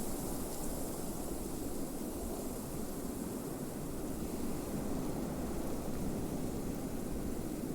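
Blizzard wind: a steady, even rush with a low rumble and a high hiss, no single gust standing out.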